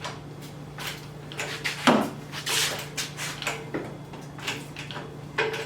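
Irregular metal knocks and clanks, the loudest about two seconds in, as an engine hoist lifts and pulls the engine forward out of the engine bay, over a steady low hum.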